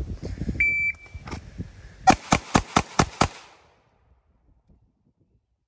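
A shot timer gives a single start beep. About a second and a half later a pistol fires six fast shots in just over a second: a timed six-round Bill drill drawn from concealment, run in about 2.6 seconds.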